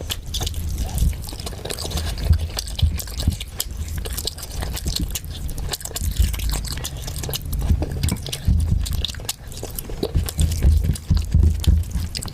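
Close-miked wet eating sounds: chicken curry and rice being chewed and squelched, with irregular smacking clicks throughout.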